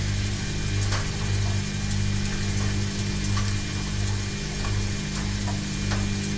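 Washing machine running: a steady motor hum with a low throb that swells and fades about every two-thirds of a second, and scattered faint clicks.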